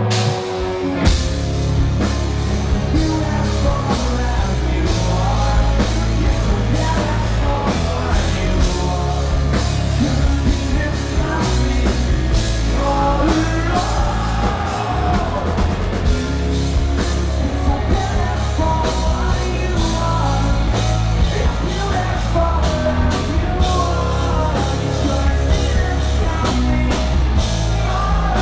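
Rock band playing live at full volume: drums, distorted electric guitars and bass under a male singer's vocal.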